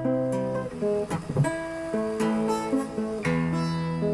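Background music: guitar strumming a run of chords that change about every second.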